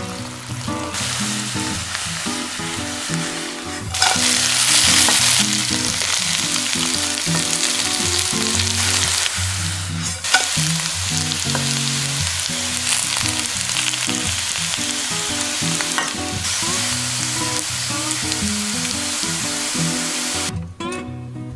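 Potato and onion strips sizzling as they fry in oil in a nonstick pan. The sizzle gets louder about four seconds in and cuts off near the end, with quiet acoustic guitar music underneath.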